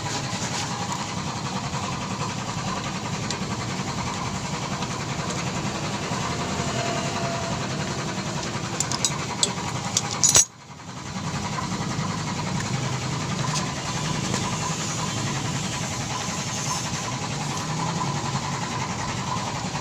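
A motorcycle engine idling steadily. A few light clicks come just before halfway, then the sound cuts out for a moment and resumes.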